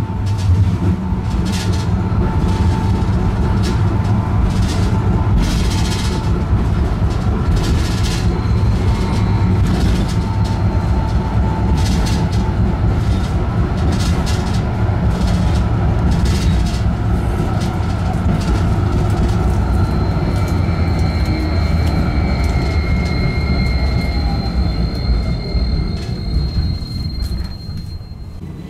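Tram running on the rails: a steady heavy rumble broken by irregular sharp clacks. A high, steady wheel squeal joins about twenty seconds in, and the noise dies down near the end.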